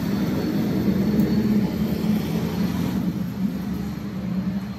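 A heavy truck passing on the nearby road: a low engine and tyre drone that swells about a second in and then slowly fades as it goes by.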